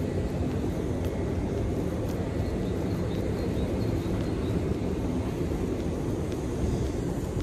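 A steady low rumble with no clear pitch or rhythm.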